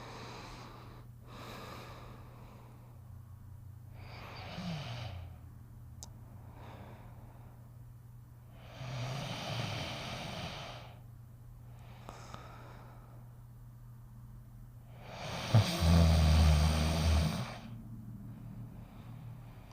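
A sleeping dog breathing slowly and noisily, with about six long breaths, and a loud, low rattling snore about three-quarters of the way through. A faint steady low hum runs underneath.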